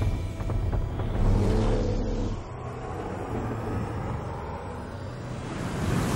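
Deep rumble under a rushing noise, loud for the first two seconds or so, then dropping to a softer rushing noise that swells again near the end.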